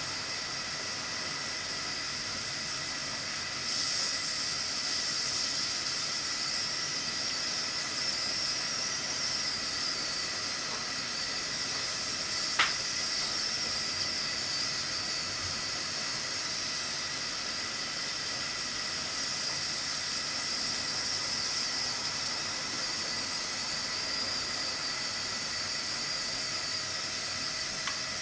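Pressure cooker under pressure, steam hissing steadily from its pressure valve, with a faint thin whistle in the hiss. A single short tick sounds about halfway through.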